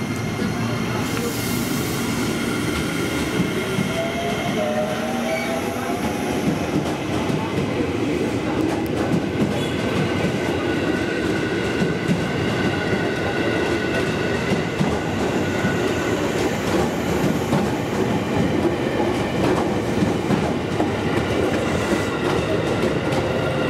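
Ex-JR Musashino Line 205 series electric multiple unit passing at close range: a steady rumble of steel wheels on the rails with clickety-clack over the rail joints. A few high, steady whining tones sound above it.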